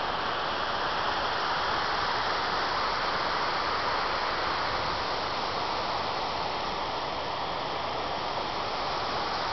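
Water pouring down steadily inside a thermal power plant's cooling tower, an even rushing noise that holds unchanged throughout.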